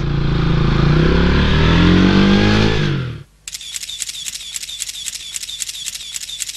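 GPX Legend 150's single-cylinder engine pulling away, its pitch rising as it accelerates, then cutting off abruptly about three seconds in. After that, light rhythmic clicking at about five a second.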